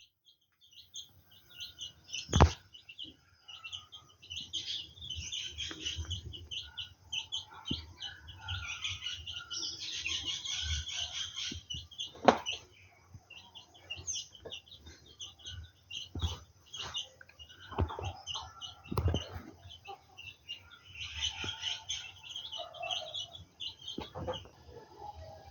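Birds chirping and singing, many short calls overlapping, thickest in the middle and again near the end. A few sharp knocks stand out now and then.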